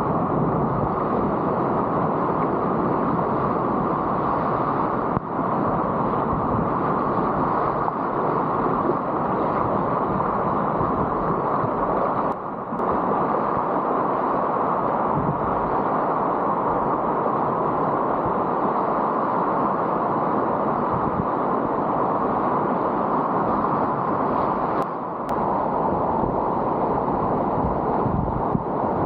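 Whitewater of a river in high flood rushing steadily and loudly, heard up close from a kayak on the water; the level dips briefly twice.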